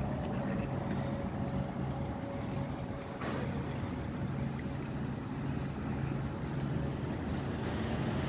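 A car driving slowly over wet paved streets, heard from inside the car: a steady engine hum and tyre noise, with a single click about three seconds in.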